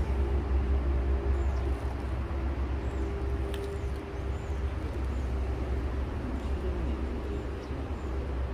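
Outdoor ambience: a steady low rumble, with faint short high chirps now and then.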